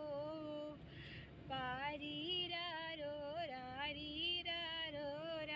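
A woman singing a slow melody with long held notes, pausing briefly about a second in.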